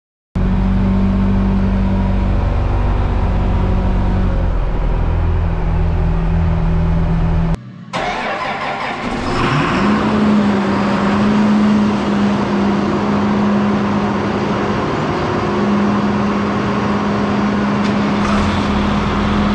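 Big diesel farm tractor engines running inside a metal machine shed. About eight seconds in the sound cuts, and an engine comes up in speed over a second or so, then runs steadily.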